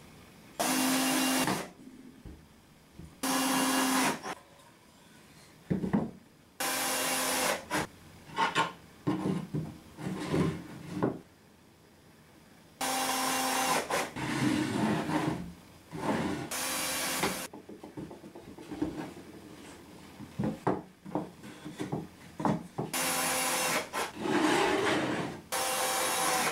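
Cordless drill-driver driving screws into softwood battens in seven short runs of about a second each, its motor whining steadily. Between the runs come the knocks and rubbing of the wooden pieces being handled.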